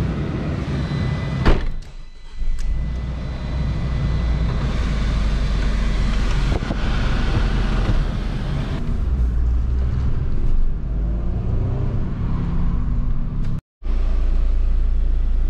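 A Fiat 500 being driven, heard from inside the cabin: a steady low engine and road rumble, with a click about a second and a half in.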